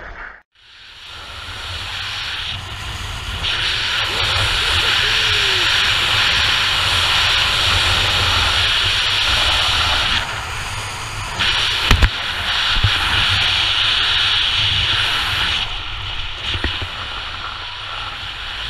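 Wind rushing over a skier's body-mounted camera microphone, with a low rumble under a steady hiss of skis sliding through snow that swells and eases in long stretches. It starts suddenly after a brief dropout, and one sharp click comes about twelve seconds in.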